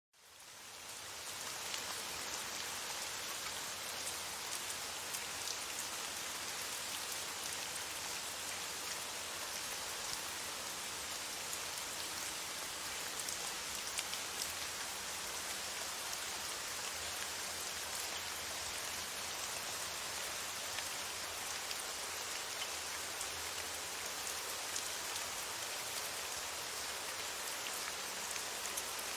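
Steady rain falling, a dense even hiss with scattered individual drop ticks, fading in over the first second or so.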